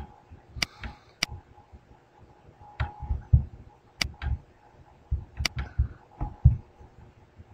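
Scattered computer mouse-button clicks: a few sharp, separate ticks several seconds apart, with dull low knocks in between. They are repeated clicks on a computer that has stopped responding because it is busy.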